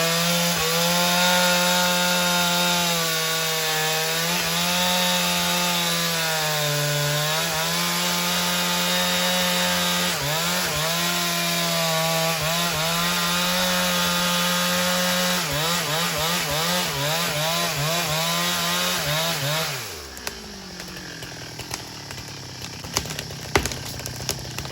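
Chainsaw running at full throttle in the cut, its pitch wavering and sagging as the chain labours, with the bar pinched in the trunk because the tree is leaning back against it. About 20 seconds in the revs fall away sharply and the saw goes much quieter, leaving a few light clicks and knocks.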